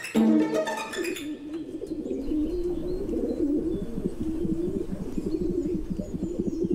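Pigeons cooing: a low, warbling coo that runs on steadily. Plucked-string music stops about a second in.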